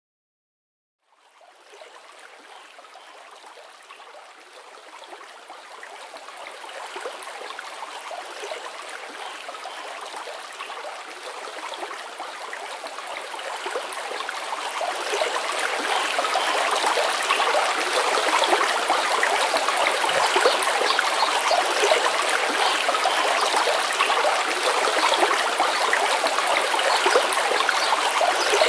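Running water from a stream, a steady rushing and trickling that fades in after a second of silence and grows louder over about fifteen seconds before holding steady.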